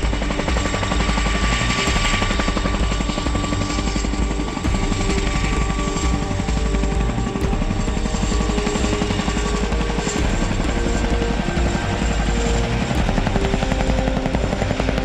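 Boeing CH-47 Chinook tandem-rotor helicopter flying low past: a steady, rapid chop from its two rotors with a thin steady whine above it.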